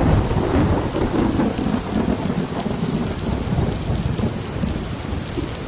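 Thunderstorm: steady heavy rain with a low rolling rumble of thunder, strongest in the first couple of seconds and slowly easing.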